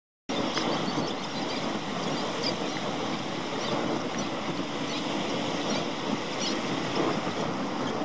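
Small waves lapping and washing on a shallow shore: a steady wash of water.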